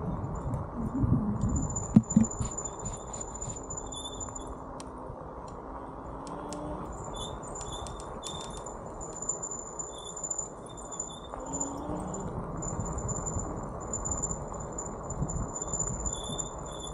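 Wind buffeting a handlebar-mounted camera's microphone and tyre noise from a bicycle rolling on a paved road, with a knock about two seconds in and scattered clicks. A thin high whistle-like tone comes and goes in stretches above it.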